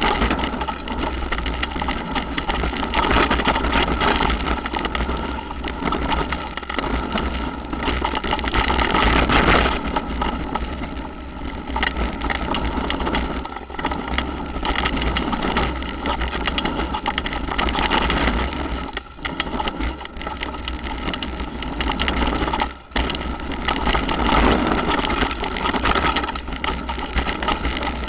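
Mountain bike riding fast down a gravel trail, heard from a camera mounted on the bike or rider: wind buffeting the microphone with a heavy rumble, tyres crunching over loose stones and the bike rattling over bumps. The noise dips briefly twice near the end.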